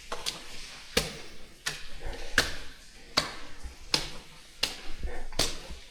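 Footsteps on a hard floor at a steady walking pace, about seven steps.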